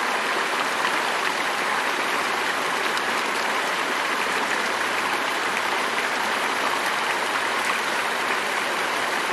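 River water flowing steadily, a constant rushing babble with no breaks.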